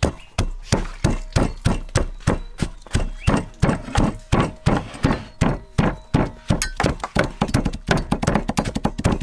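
Wooden pestle pounding sliced lemongrass and garlic in a deep wooden mortar, a steady run of knocks at about three strokes a second.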